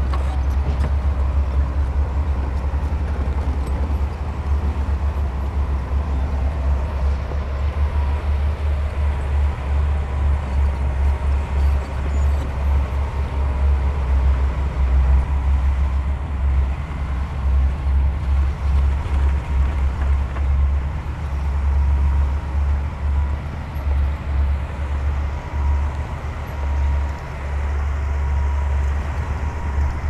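Heavy diesel earthmoving machinery running: a continuous low engine rumble that swells and dips, with a faint steady whine above it.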